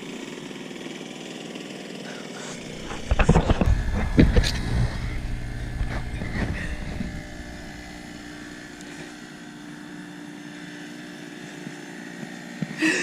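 Small boat motor running with a steady whine as its propeller rides up out of the water. There is a loud low rumbling about three to five seconds in.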